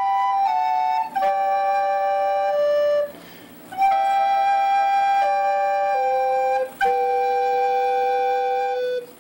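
Slow flute music: two held melodic lines sounding together in long sustained notes that change every second or so. It breaks off briefly a little past three seconds, then resumes and dies away just before the end.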